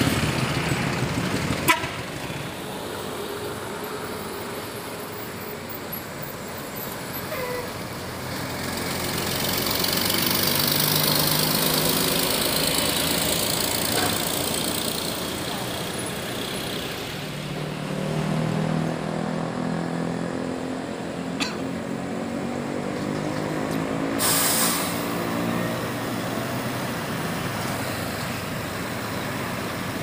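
Heavy diesel vehicles passing through a junction: a truck goes by, then a large coach's diesel engine pulls with its pitch shifting as it works. A short, sharp air hiss comes about three-quarters of the way in.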